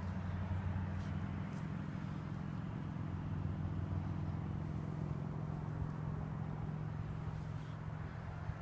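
Steady low motor hum with no change in pitch or level.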